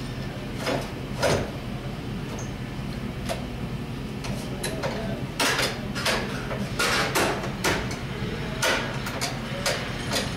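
A car battery being set into its tray and shifted into place under the hood: irregular hard knocks and clunks, a couple early and a closer run of them in the second half, over a steady low hum.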